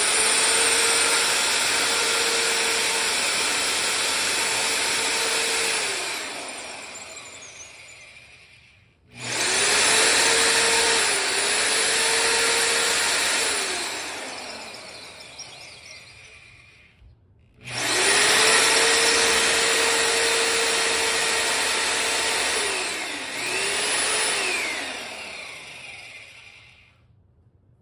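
9-amp corded 1/2-inch electric drill boring a hole into concrete with a Tapcon masonry bit. It runs in three long bursts, and each one ends with the motor winding down after the trigger is let go.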